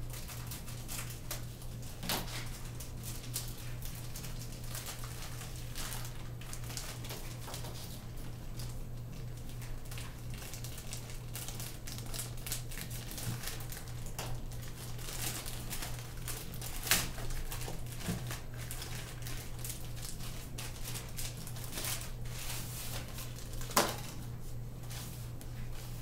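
Packaging and small plastic parts being handled by hand: scattered rustling, crinkling and light clicks, with three sharper clicks about two seconds in, near the middle and near the end. A steady low hum runs underneath.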